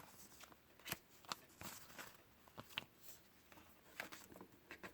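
Paper manuals and cardboard box inserts being handled: faint, scattered light clicks and short rustles.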